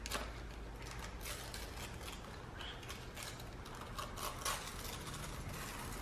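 Wrapping paper on a small gift crinkling and tearing in faint, irregular rustles as it is unwrapped by hand.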